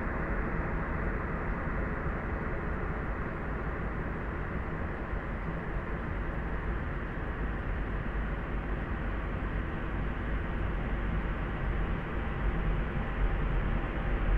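Steady, soft layered noise, heavy in the bass and muffled, with no high end. It is a sleep-noise track made to be looped.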